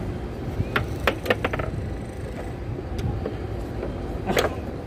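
Foosball table in play: the ball and rods knocking, with a quick run of sharp clacks about a second in, another single clack, and a louder one near the end, over a steady low background rumble.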